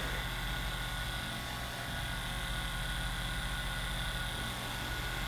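Percussive massage gun running steadily: a low electric motor hum with a fast, even pulsing.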